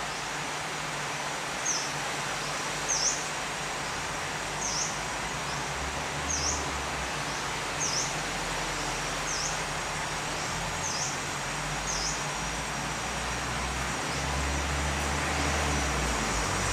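A bird repeating a short, high chirp about every second and a half over a steady background hiss, with a low rumble building near the end.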